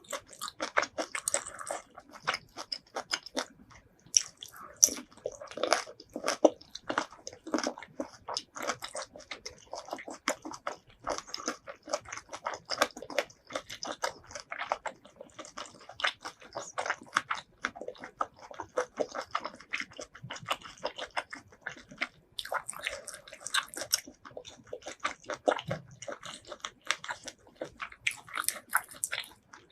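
Close-miked eating of seafood: steady chewing and biting, a dense irregular run of wet clicks and crunches, several a second.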